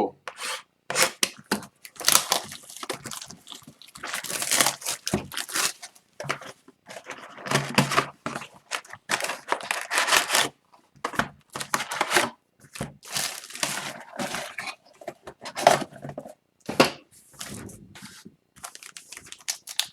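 Upper Deck Series 2 hockey card box and packs being torn open by hand: repeated, irregular tearing and crinkling of cardboard and pack wrappers.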